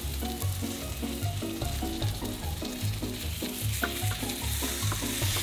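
Cabbage-and-egg pancake frying in oil in a square pan, a steady sizzle with small crackles, under light background music with short plucked notes over a bass line.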